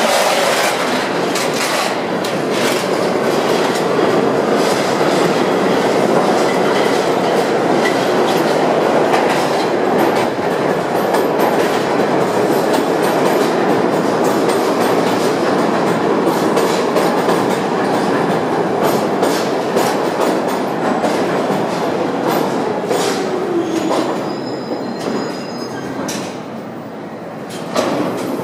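R62 subway trains rumbling through the station. One pulls out with third-rail shoe arcing, then another runs in, its wheels clattering over rail joints. It slows with a falling whine and stops near the end.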